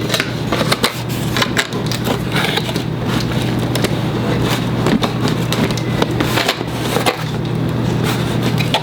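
Toy packaging being torn open by hand: plastic wrap and cardboard crinkling and crackling in a dense run of small tears and clicks.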